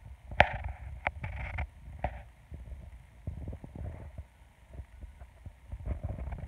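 Small ripples lapping and slapping against a canoe's hull at the water's edge, a few sharp slaps in the first two seconds, over uneven low rumbling thumps from wind on the microphone.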